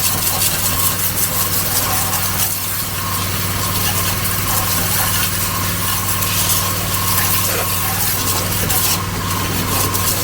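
Pressure washer running steadily: a constant motor hum with a thin whine, under the dense hiss of the water jet washing down a mower deck.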